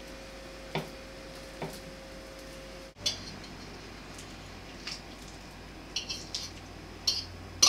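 A metal fork clinking and scraping against a ceramic plate as mashed banana is scraped off it, in a few scattered short taps that come more often near the end.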